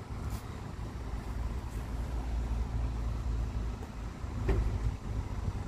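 Low, steady engine rumble of a motor vehicle, with a single short click about four and a half seconds in.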